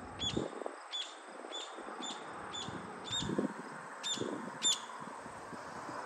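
Indian ringneck parakeet calling while in flight: short, high, sharp notes repeated evenly about twice a second.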